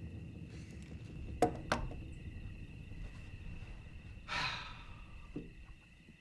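Two sharp clicks about a second and a half in, then a long breathy exhale a little after four seconds, over a steady faint hum.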